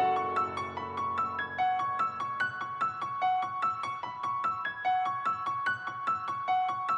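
Soft background music: a piano-like keyboard playing a quick, repeating melody of short notes that die away fast.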